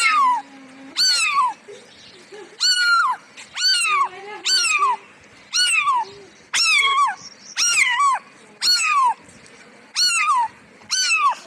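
A cat meowing over and over, about one short high meow a second, each one rising briefly and then sliding down in pitch.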